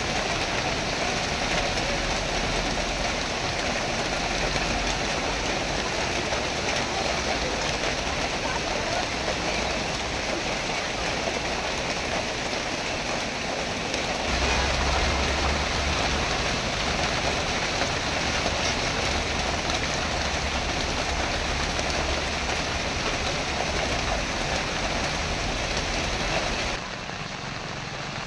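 Heavy rain falling steadily onto a wet road and the surrounding vegetation. From about halfway through, the low rumble of vehicles passing on the wet road runs beneath the rain. Shortly before the end, the sound drops a little quieter.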